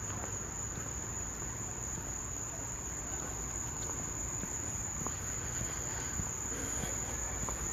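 A steady chorus of night insects trilling at one high pitch, with a low rumble of background noise underneath.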